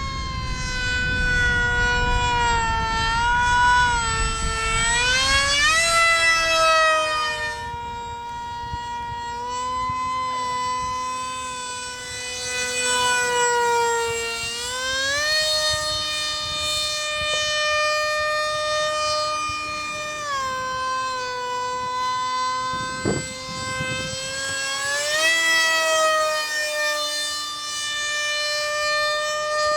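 Electric motor and pusher propeller of an RC SU-27 foam jet whining loudly in flight, the pitch rising and falling several times. A low rumble, which fits wind on the microphone, runs under it for the first few seconds, and there is one short click about 23 seconds in.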